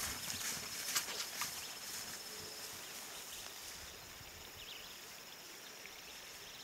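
A few hoofbeats of a mule running on grass in the first second and a half, over a steady high insect trill that fades out about two and a half seconds in. After that, faint open-air pasture background.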